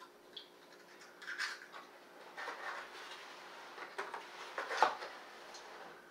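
Small kitchen handling sounds as an egg is opened over a stainless steel mixing bowl and the shell is put aside: a few scattered short clicks and rustles, the sharpest about five seconds in, over a faint steady hum.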